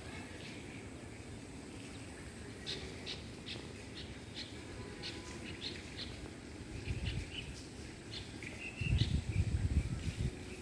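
Birds chirping: a run of short, high chirps starts a few seconds in, with a brief warbled call near the end. A low rumble swells twice in the later part, loudest near the end, over a faint steady hiss.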